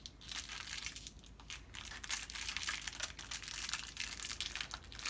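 Crinkly plastic toy packaging being handled and pulled at by hand, a dense, irregular crackling, as someone struggles to get the wrapping open.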